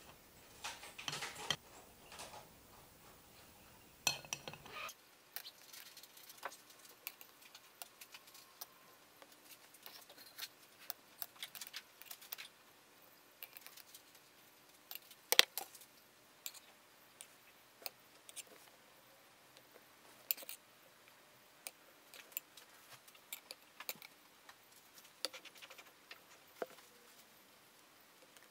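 Long metal tweezers clicking and scraping against a glass jar and rattling through small soil granules as moss tufts are pushed in, in irregular light clicks with one sharp click about halfway through.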